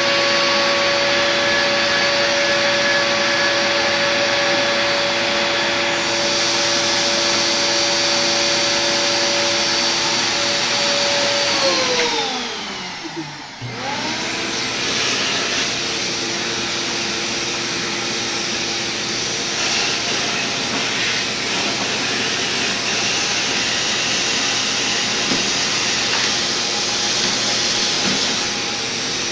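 Home-built CNC milling machine's spindle motor running with a steady whine over a constant rushing noise. About twelve seconds in, the whine's pitch drops sharply as the spindle slows, then climbs back up about two seconds later as it spins up again.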